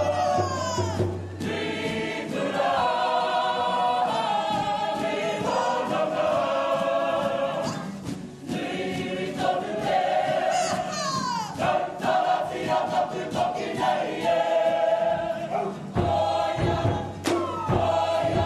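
Kapa haka group singing a waiata poi in unison, with a few phrases ending in a long falling slide in pitch. Light taps of the swung poi run through the singing.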